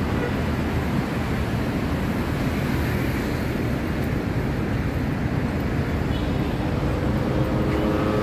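Steady city traffic noise from the busy multi-lane road below. Near the end a steady engine hum rises a little louder as a vehicle passes.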